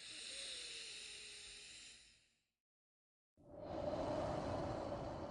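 A person breathing slowly and deeply close to the microphone. A hissy breath lasts about two and a half seconds, then after a second's pause a louder, fuller breath begins.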